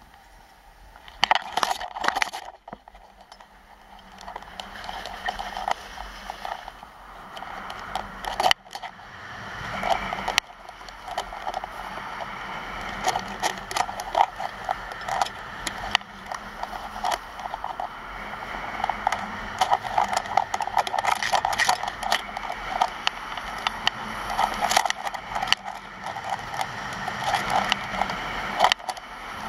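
Skis scraping over firm, chopped piste snow on a downhill run: a rough, crackling noise full of short sharp scrapes that starts about a second in and grows louder.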